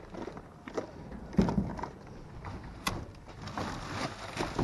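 Hands rummaging through bubble wrap and cardboard boxes: irregular rustling and knocks, with a dull thump about a second and a half in and a sharp click about three seconds in.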